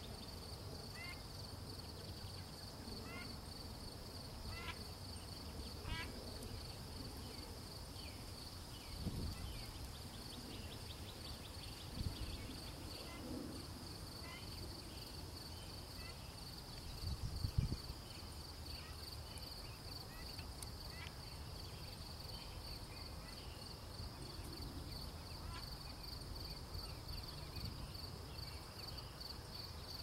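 An insect's steady, pulsing high trill runs throughout. Ducklings give short high peeps now and then in the first several seconds. A few low thumps come through, the loudest about seventeen seconds in.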